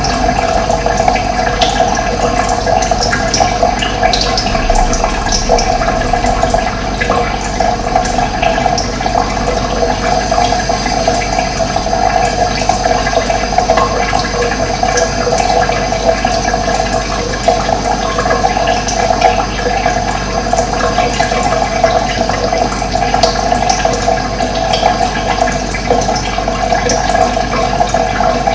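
Running water flowing steadily, a continuous splashing rush that does not let up.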